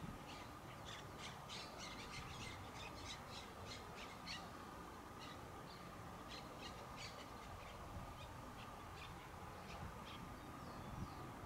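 Faint bird calls: a quick run of short, high chirps over the first few seconds, then scattered ones, over a faint steady hum.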